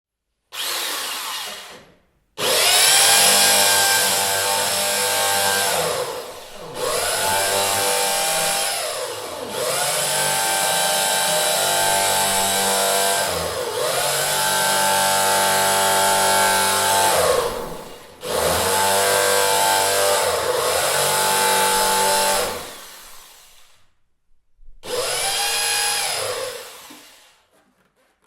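Electric drill run in a series of bursts: each time the trigger is squeezed the motor whine rises quickly to a steady pitch, holds for a few seconds, then winds down when released, with short pauses between runs.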